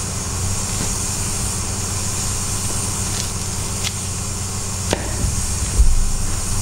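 Steady low hum with a hiss over it in a butcher's cutting room, while a knife cuts through a beef chuck. There are a few faint clicks from about three seconds in, and one low thump near the end.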